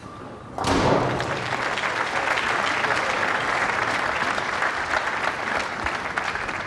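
A bowling ball strikes the single remaining 10 pin about half a second in, converting the spare. Steady crowd applause follows and lasts to the end.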